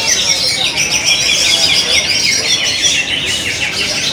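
A chorus of many caged greater green leafbirds (cucak ijo) singing at once in a song contest: dense, overlapping fast chirps and trills with no pause, over a faint murmur of people.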